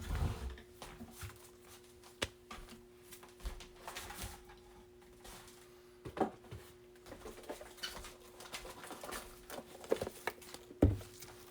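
Scattered light taps and clicks of hands handling trading cards and a plastic top loader, over a faint steady hum.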